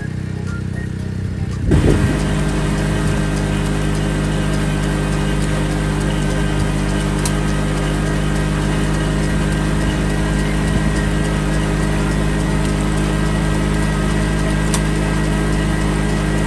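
Riding rice transplanter's engine running at a steady speed while planting seedlings in a flooded paddy. About two seconds in it becomes suddenly louder and closer, heard from on board the machine.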